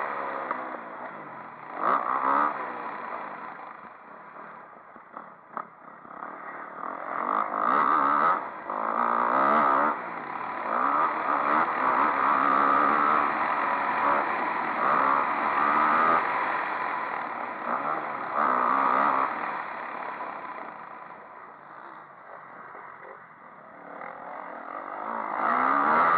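Motocross dirt bike engine heard from a camera on the bike, revving hard and easing off again and again as it is ridden round the track. It drops to a quieter, lower running about five seconds in and again near twenty-two seconds, then picks up near the end.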